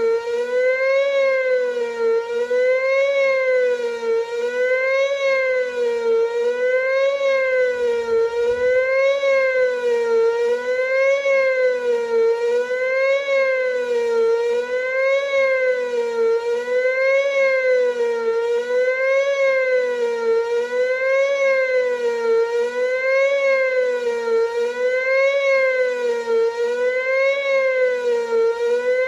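Whelen WPS-2910 electronic outdoor warning siren sounding a wavering tone, its pitch rising and falling about once every two seconds: the attack signal of a siren test.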